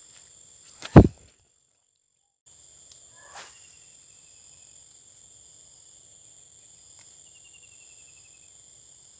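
Insects, crickets or similar, chirring steadily at a high pitch. One loud sharp knock about a second in, then the sound drops out completely for about a second.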